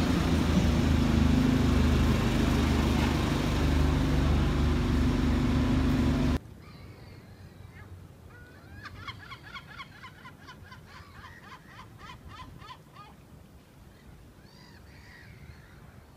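Idling bus engines hum steadily under the bustle of a covered bus station, then cut off sharply about six seconds in. A quieter riverside background follows, in which a bird calls in a quick run of short notes for about four seconds.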